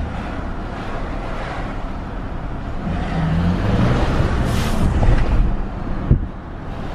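Ford F-150's 3.5L EcoBoost twin-turbo V6 heard from inside the cab pulling under acceleration, engine note rising, with turbo whistle brought out by a dual cold air intake. About four and a half seconds in there is a loud hissing rush of air, typical of the TurboSmart blow-off valve venting. About a second later comes a single sharp knock, and the engine sound eases off.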